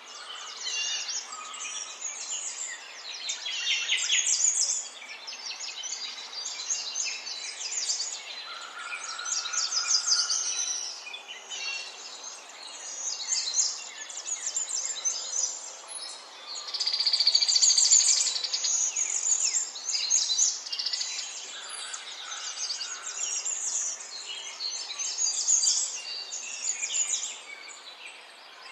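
Several birds singing and chirping at once, overlapping trills and rapid chirps in short phrases that come and go, with a louder burst of song about two-thirds of the way through.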